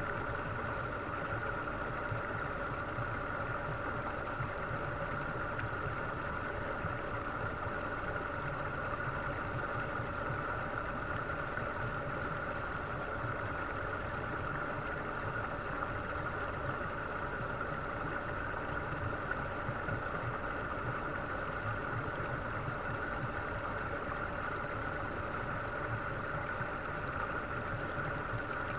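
Steady, unchanging mechanical hum of an aquarium tank's water pumps and filtration heard underwater, with a thin constant high whine above it.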